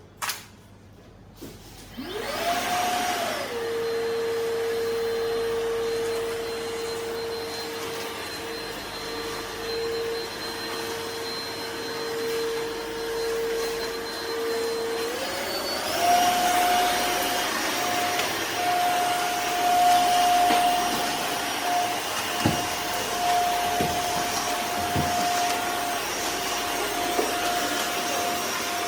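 Makita VC008G cordless backpack vacuum cleaner: a click, then its motor spins up and runs with a steady whine. About halfway through it steps up to a higher speed with a higher-pitched whine and keeps running.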